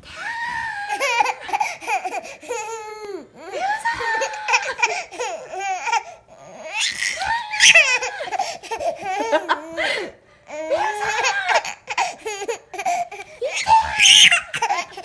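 A young child laughing hard in long, repeated fits of high-pitched belly laughter and giggles, with short breaks between bouts.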